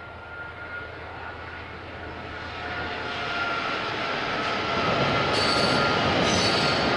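KiwiRail train approaching, its noise growing steadily louder, with a thin high squeal from the wheels on the rails and two sharper bursts of wheel squeal near the end.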